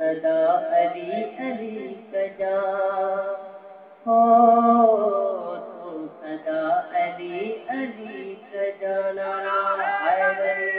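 A man's voice singing a devotional recitation (a manqabat in praise of the Imam) solo, in long held melodic phrases with short breaks between lines.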